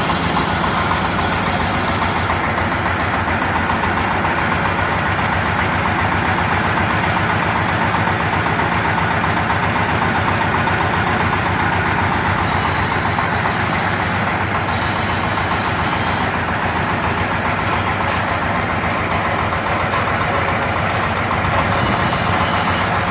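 An engine idling steadily at a constant speed.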